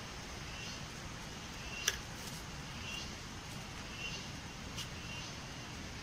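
Forest outdoor ambience: a steady low hiss with faint short, high chirps from calling insects repeating about once a second. One sharp click comes about two seconds in.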